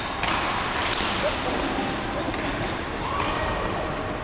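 Badminton rally: rackets striking the shuttlecock in sharp cracks, four or five times, echoing in a large sports hall, with shoes squeaking on the court floor.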